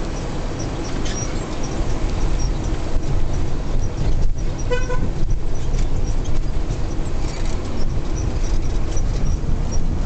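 Van engine and road noise heard from inside the cabin, a steady low rumble on a winding road. A brief horn toot sounds about five seconds in.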